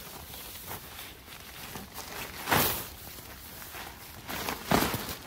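Tent fabric rustling and swishing as it is handled, with two louder swishes, one about halfway through and one near the end.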